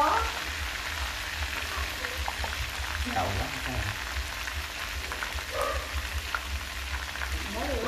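Field rat meat frying in oil with lemongrass and chili in a nonstick pan: a steady sizzle with small crackling pops.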